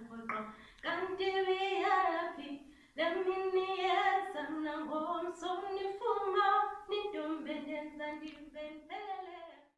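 A woman singing solo and unaccompanied, holding long wavering notes with a few short pauses for breath.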